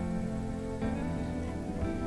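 Background music: a slow, soft instrumental of held chords that change about once a second.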